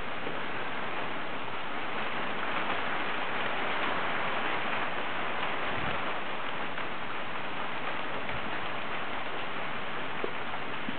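Hail falling steadily: a dense, even hiss of small hailstones striking the ground, peppered with faint individual ticks.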